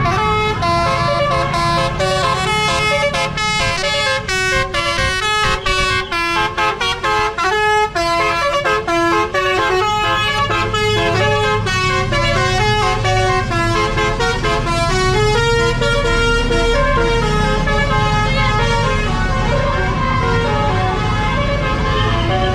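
Bus telolet horn: a multi-trumpet musical air horn playing a quick melody, its notes stepping up and down without a break. Under it runs the low rumble of the bus's engine, louder in the second half.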